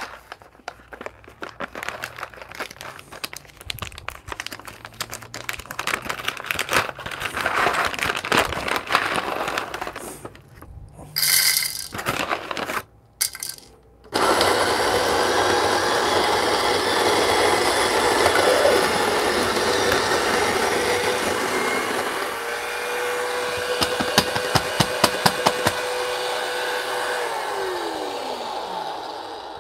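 Coffee beans rattling as they are poured from a bag into the plastic hopper of a Solis Scala Plus burr grinder. About fourteen seconds in, the grinder's motor starts and grinds the beans steadily, with crackling from beans in the burrs. Near the end it stops, with a whine that drops in pitch.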